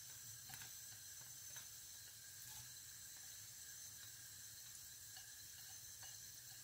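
Near silence with a faint steady hum and a few soft taps as chopped peppers are scraped from a plate into a wok of oil.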